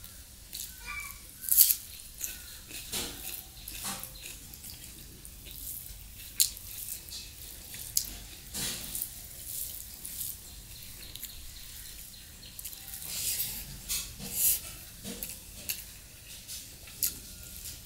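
Eating with the hand: fingers squishing and mixing rice with chicken curry in a steel bowl, and wet, smacking chewing. The result is a run of irregular short wet clicks and smacks, the loudest about a second and a half in.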